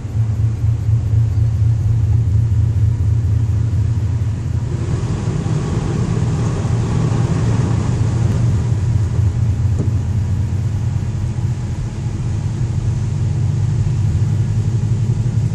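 Car running on a wet road, heard from inside the cabin as a steady low rumble. About five seconds in, a rush of water spray joins it as the tyres plough through standing floodwater; it eases off after a few seconds.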